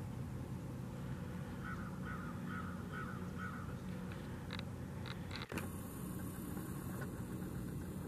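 A crow cawing, a run of about five caws at roughly two a second, over a steady low hum; a few shorter, sharper calls follow, and the sound cuts off abruptly about two thirds of the way in.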